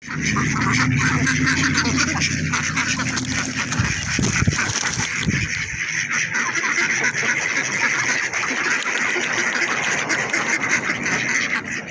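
A large flock of domestic mallard-type ducks quacking, many overlapping quacks in a dense, continuous chorus. A low steady hum sits under the first four seconds and then stops.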